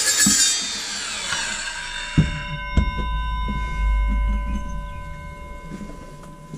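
Evolution 165 mm TCT multi-material circular saw finishing its pass through steel box section, then spinning down with a falling whine. A couple of metal clunks come about two seconds in, followed by a steady metallic ringing that slowly fades.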